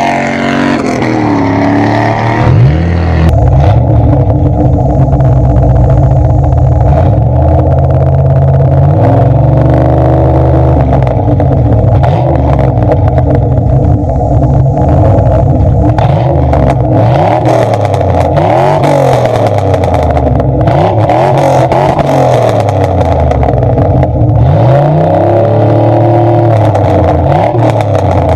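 1994 Camaro Z28's LT1 V8 through an SLP Loudmouth exhaust. The engine winds down in pitch over the first two seconds or so. It then idles steadily, and from about nine seconds in it is blipped in a series of short revs that rise and fall back to idle.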